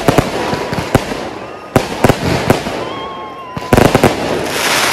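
Fireworks going off: a string of sharp bangs, a tight cluster of crackling reports about two thirds of the way in, then a hissing rush, with thin whistling tones sounding between the bangs. A ground fountain firework is spraying sparks among them.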